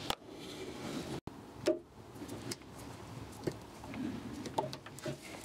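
A few scattered light clicks and knocks from hands and a small pick tool working at the TD5 ECU wiring connectors, the sharpest knock a little under two seconds in. The sound cuts out completely for an instant about a second in.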